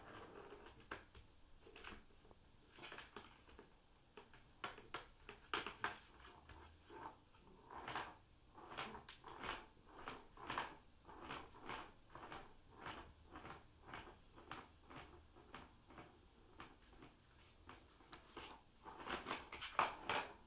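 Plastic ball rattling and rolling inside the tubes of a Catit Senses Super Roller Circuit track as a cat bats at it, making many light clicks and taps on the plastic. The clicks come in loose bunches and are loudest near the end.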